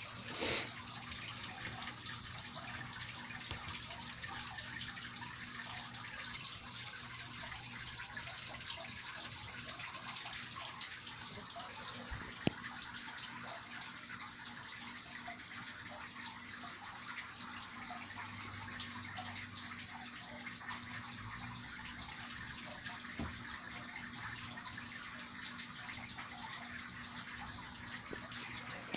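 Synthetic rainfall system in a reptile enclosure: a steady patter and hiss of water drops falling through the tank onto branches, leaves, substrate and glass, with a brief louder rush of noise about half a second in.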